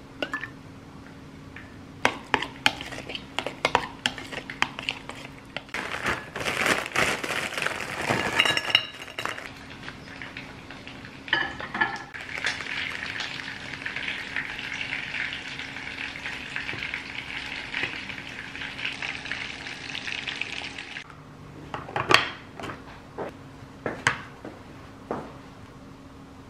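Kitchen prep sounds: a spoon clinking and scraping in a glass mixing bowl as a mayonnaise mixture is stirred, then a steady hiss for several seconds, then a few sharp knocks of a spoon as rice is scooped into a bento box.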